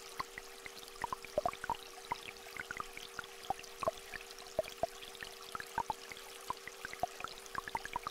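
Water dripping and plinking irregularly, several drops a second, over a faint trickle of a small stream, with two steady held tones a little apart in pitch sounding underneath the whole time.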